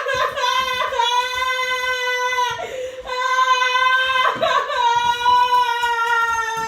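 A woman's high-pitched wail held on long, steady notes, broken by two quick breaths about two and a half and four seconds in.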